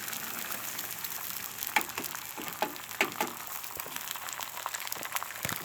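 Oil sizzling quietly on a Blackstone griddle turned down to very low, with a few sharp taps and clicks through the middle.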